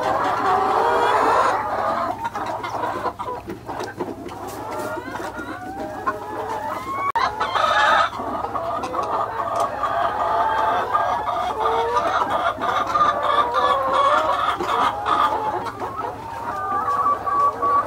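A flock of laying hens clucking and calling, many birds at once, with one louder, higher call about eight seconds in.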